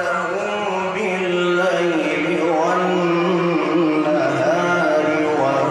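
A man's voice in melodic Quranic recitation (tajwid), drawing out one long, ornamented note that wavers up and down in pitch, then dropping lower about four seconds in.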